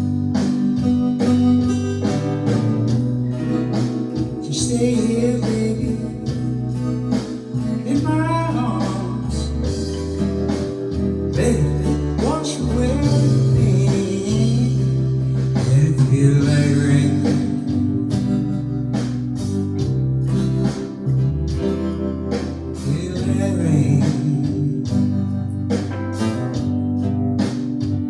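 Slow blues-tinged band playing an instrumental break: a lead line with bending notes over guitar, bass and a steady beat.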